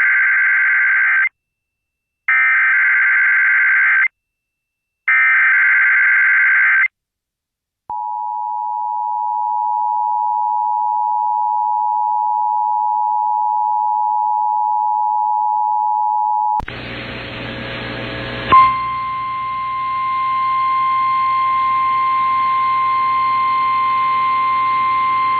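Emergency Alert System required monthly test heard over FM radio. Three short bursts of warbling SAME digital header data come about two seconds apart, followed by the steady two-tone EAS attention signal (853 and 960 Hz) for about eight seconds. The attention signal cuts off into a burst of static, and about two seconds later the steady 1050 Hz National Weather Service alert tone begins, with hiss behind it.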